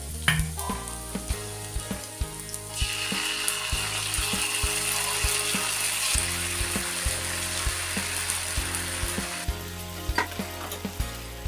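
Food sizzling in hot oil in a pan: the frying hiss starts suddenly about three seconds in and stops suddenly near the end, with sharp clicks scattered throughout.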